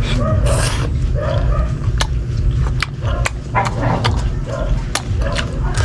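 Close chewing and mouth clicks of a man eating green mango with shrimp paste, over a steady low rumble. Short pitched animal calls come several times in the background.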